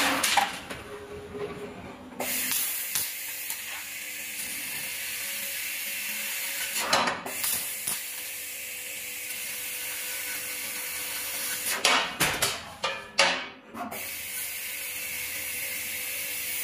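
Tube laser cutting machine cutting a steel U-channel: a steady hiss of assist gas from the cutting head starts about two seconds in, broken by sharp loud bursts once near the middle and several more in quick succession later on.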